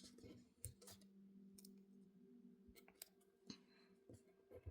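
Near silence: faint steady room hum with a few soft handling clicks.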